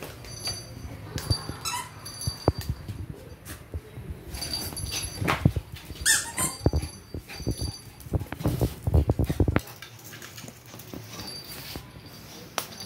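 Shih tzu whining in high, wavering squeaks, scared of a cologne spray, mixed with scuffling and knocks as the dogs move about.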